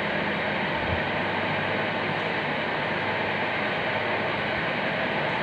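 Steady rushing background noise that holds an even level throughout, with no distinct strokes or taps standing out.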